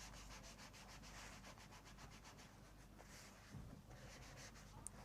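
Faint, quick rubbing strokes of fabric being smoothed and worked by hand, several strokes a second, stopping a little before the end.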